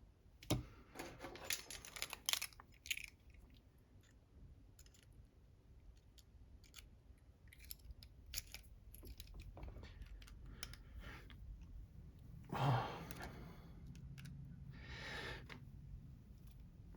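Small metal clicks and scrapes of a lock cylinder being taken apart by hand, screws being worked out of the back plate, densest in the first few seconds. About two-thirds through comes a short low grunt.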